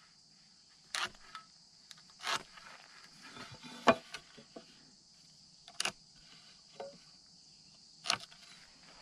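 Light knocks and taps of a metal speed square and marker being set against and handled on a wooden beam, five or so spaced a second or two apart. Under them runs a steady high chirring of insects.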